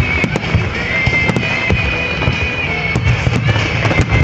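Aerial fireworks shells bursting in quick succession, many sharp bangs and crackles over a low rumble, with music playing underneath.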